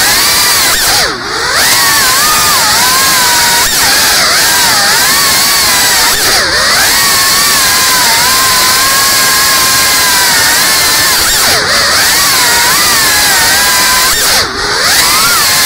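Brushless motors and props of a Geprc CineLog cinewhoop FPV drone whining in flight, the pitch gliding up and down with the throttle. The sound dips briefly four times, about a second in, around six seconds, near twelve seconds and near the end, as the throttle is chopped.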